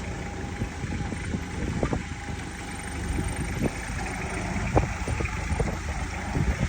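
Willys Jeep engine running, with occasional sharp knocks and rattles.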